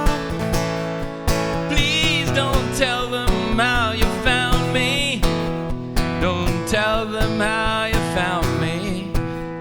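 Instrumental passage of a song: strummed acoustic guitar over a steady beat, with a wavering lead melody line carrying vibrato.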